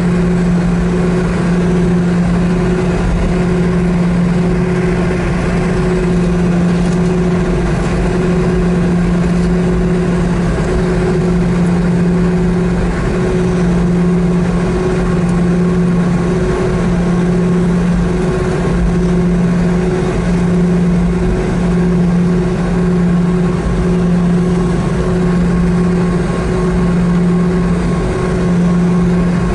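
Boeing 717-200's rear-mounted Rolls-Royce BR715 turbofan engine running at low taxi power, heard from inside the cabin right beside the nacelle: a steady drone with a low hum that swells and dips slightly.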